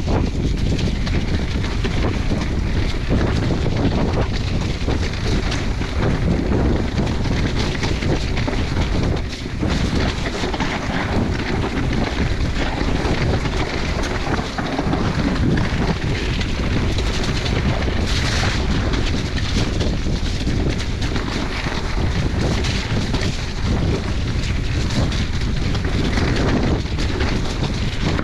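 Wind buffeting the microphone over the rumble and rattle of a mountain bike riding fast down a rough, wet trail.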